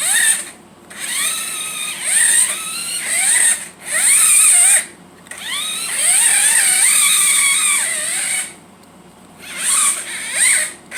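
Small electric motor of a Mario Kart remote-control toy car whining in five bursts, each up to about three seconds long, its pitch rising and falling as the throttle is worked, with the car in its hovering drift mode.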